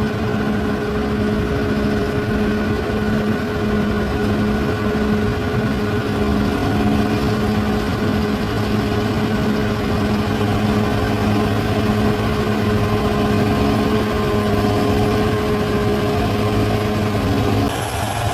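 Bulldozer's diesel engine running steadily with a held, even hum; the tone changes shortly before the end.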